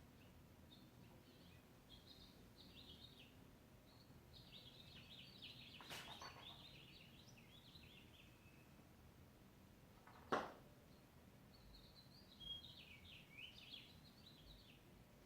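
Faint songbird chirping and warbling in phrases, with a couple of sharp knocks, the loudest about ten seconds in.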